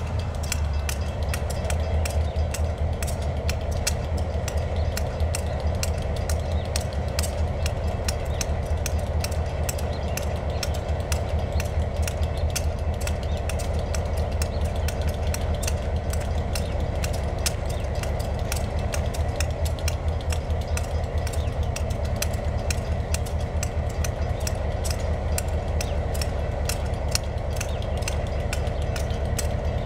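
Two EMD SW1200RS switcher locomotives, 12-cylinder two-stroke diesels, running steadily while standing, with a deep, even hum and a fast, regular exhaust beat.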